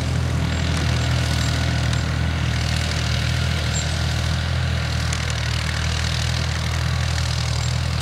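Farm tractor engine running steadily with a low, even hum while towing a leveller board across ploughed soil.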